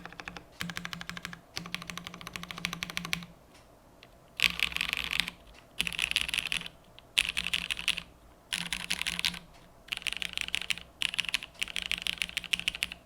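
Typing on a top-mounted KFE OG mechanical keyboard with Cherry MX Vintage Black linear switches, an aluminium plate and GMK keycaps. Rapid keystrokes come in bursts of about a second, separated by short pauses, with a longer pause about three seconds in.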